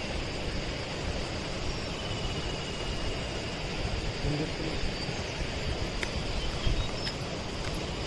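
Steady rushing roar of a waterfall, an even noise with no breaks.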